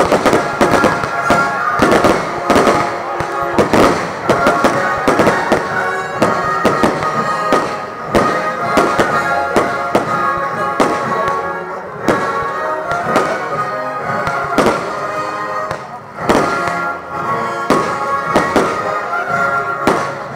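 Fireworks bursting in quick succession, many sharp bangs and crackles, over music with sustained tones.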